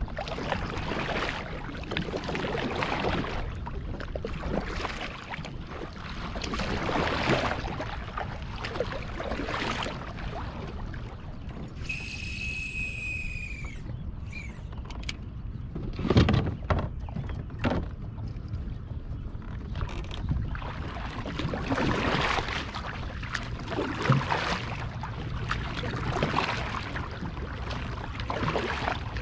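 Kayak paddle blades dipping and pulling through the water in repeated strokes. About halfway through a high whistling tone lasts about two seconds, followed by a few sharp knocks.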